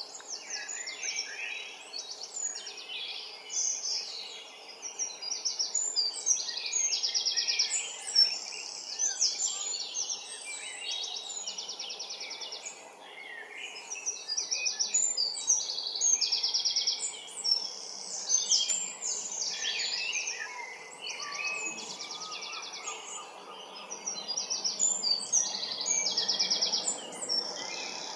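Dawn chorus of garden songbirds, with wren and blackbird among them: overlapping songs and many short, fast, ringing trills follow one another without a break. A steady low rumble of distant road traffic runs underneath.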